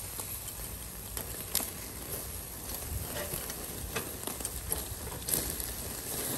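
Meat grilling on a wire rack over charcoal, sizzling, with irregular crackles and pops as fat drips onto the hot coals.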